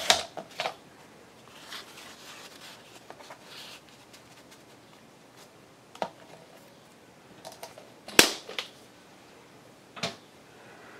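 Paper and craft tools handled on a desk: soft rustling and sliding, with a few sharp taps and clicks, the loudest about eight seconds in.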